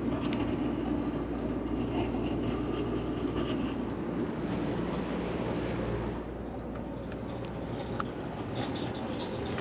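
Air conditioning unit running: a steady mechanical hum and rumble, easing slightly about six seconds in.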